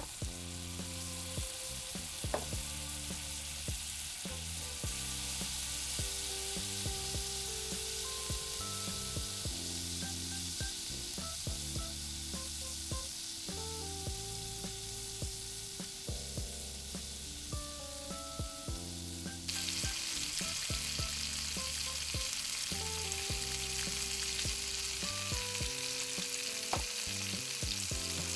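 Food sizzling as it fries in a small pan, the hiss getting louder about two-thirds of the way through, with occasional light clicks of a utensil stirring. Soft background music with held notes plays underneath.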